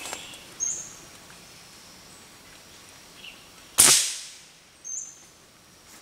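A single sharp shot from a bird hunter's weapon about four seconds in, fading over about half a second. A short high bird chirp, falling slightly in pitch, comes twice: before and just after the shot.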